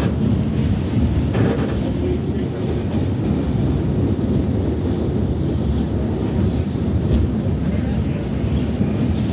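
R68A subway train running on the track, a steady, loud low rumble of wheels and running gear.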